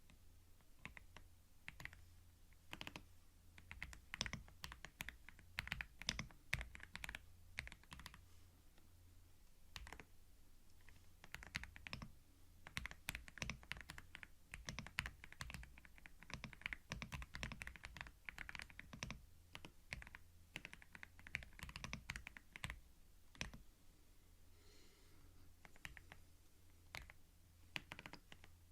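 Typing on a computer keyboard, recorded close on binaural microphones: irregular runs of key clicks, with a short pause about three-quarters of the way through.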